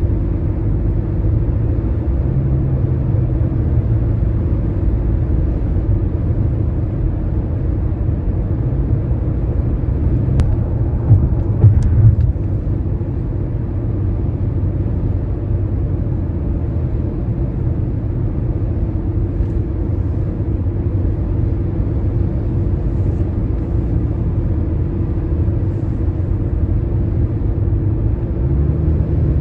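Steady low rumble of a car's tyre and road noise at highway speed, with a steady hum, and a few brief louder thumps about eleven to twelve seconds in.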